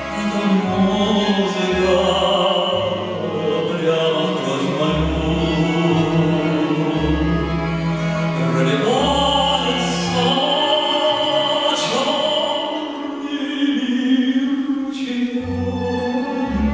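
Male singer singing a slow song live into a microphone, accompanied by classical guitar, double bass and violin; the double bass plays separate low notes every second or two beneath the voice.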